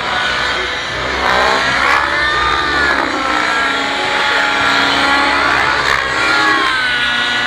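Radio-controlled 3D aerobatic helicopters flying overhead, their rotors and motors whining and rising and falling in pitch over and over as they manoeuvre.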